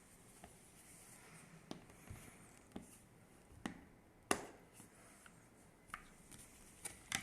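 Scattered small clicks and taps of metal cabinet hinge parts being handled, about half a dozen over the stretch, the sharpest about four seconds in.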